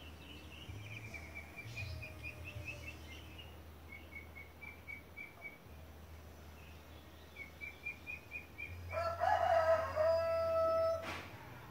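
A rooster crows once, a long call of about two seconds near the end. Before it, a small bird sings short runs of quick, high, repeated chirps.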